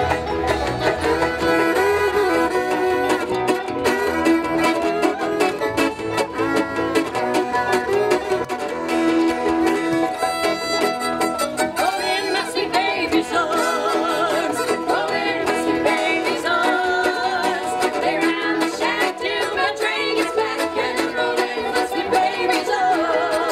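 Bluegrass string band playing, with fiddle and banjo over guitar and upright bass, and voices singing.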